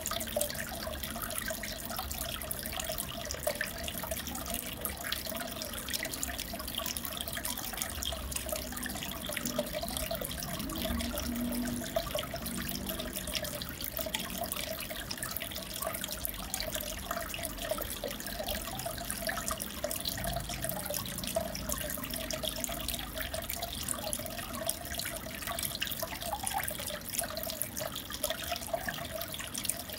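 Aquarium water bubbling and trickling steadily, with many fine crackles of bursting bubbles and a continuous wavering gurgle.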